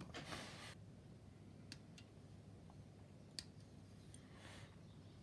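Near silence: room tone with a few faint, sharp clicks spaced a second or more apart, and a soft brief hiss near the end.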